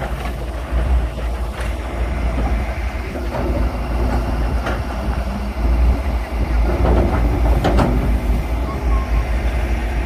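Diesel engines of working excavators running steadily, with a strong low rumble. Three short sharp knocks come about a second and a half, four and a half and seven and a half seconds in.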